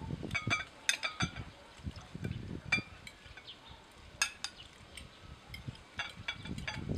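Sour cherries in their juice tipped from a glass jar into a glass bowl: irregular sharp, ringing clinks of glass on glass, with soft wet sounds of fruit and juice landing.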